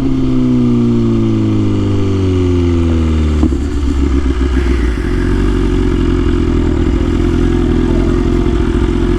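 BMW S1000RR's inline-four engine with the revs falling steadily as the bike slows. About three and a half seconds in it changes suddenly, then runs at a steady pitch.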